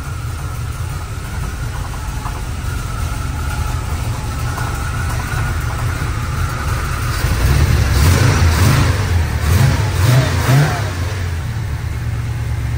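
GM Performance crate 350 small-block V8 idling low and cold, about 600 rpm, with a steady rumble through its exhaust. About eight seconds in, the engine is revved up and down a few times over roughly three seconds, then drops back to idle.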